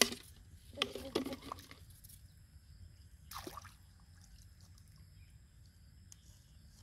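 Muddy ditch water sloshing and splashing as a plastic bowl is dipped and scooped through it: a splash at the start, a longer stretch of sloshing about a second in, and another splash about three and a half seconds in.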